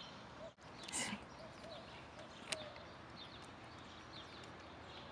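Faint outdoor background with a few short bird chirps, a brief rustle about a second in and a single sharp click about halfway through.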